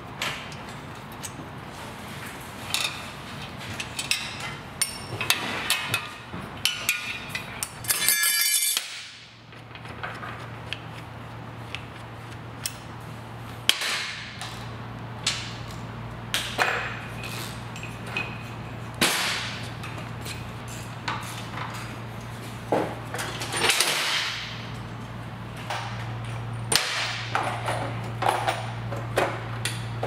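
Scattered metal clanks, taps and knocks of hand tools on motorcycle parts as the front forks and handlebars of a Harley-Davidson Sportster are taken apart, with a quick run of ticks about eight seconds in. A steady low hum runs underneath from about a third of the way in.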